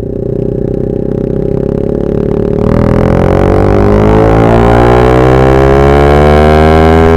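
Motorcycle engine running at a steady pitch, then accelerating from about three seconds in, its pitch rising smoothly and continuously as it revs up.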